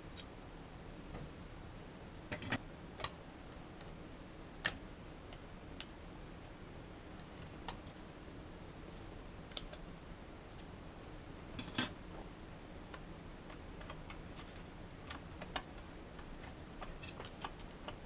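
Scattered, irregular sharp clicks and light taps of small metal and plastic parts being handled while a 2012 Mac Mini is disassembled: its perforated metal vent grille and a plastic internal cover. The loudest click comes about two-thirds of the way through, over a faint steady room hiss.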